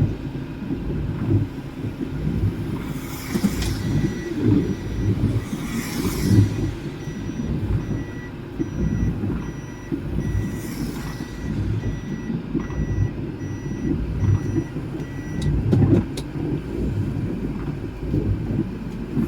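Car engine and road rumble inside the cabin, with a steady run of repeated electronic beeps that starts a few seconds in and stops near the end. Three brief swishes pass over it.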